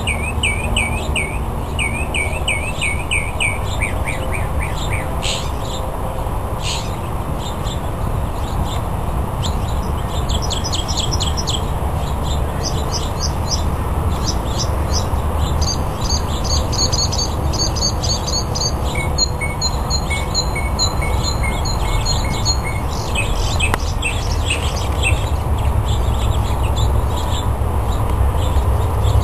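Male northern mockingbird singing its courtship song: a long run of varied high phrases, each repeated several times in quick succession before switching to the next, over a steady low background rumble.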